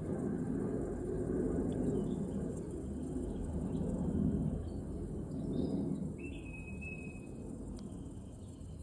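A vending-machine refrigeration unit's condenser fan running, a low rushing hum that eases off toward the end. A bird chirps a few times in the background, with one longer call about six seconds in.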